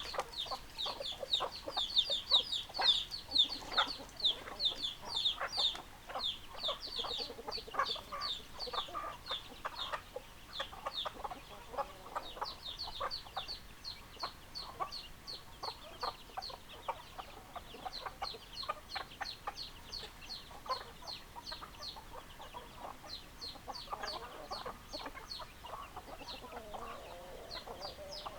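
Chickens clucking, over a continuous run of short, high-pitched calls, several a second.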